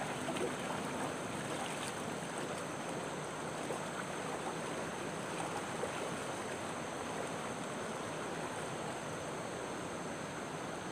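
Shallow river running fast over stones after a flood: a steady rush of flowing water.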